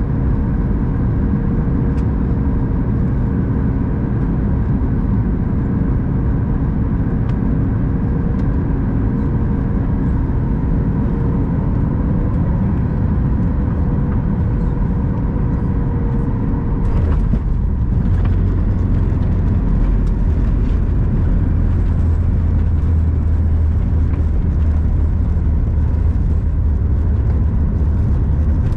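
Cabin sound of a Boeing 737 MAX 8 on landing: a steady jet-engine hum with a whine, then about 17 seconds in a brief jolt of touchdown, after which a heavier low rumble of the wheels rolling on the runway takes over.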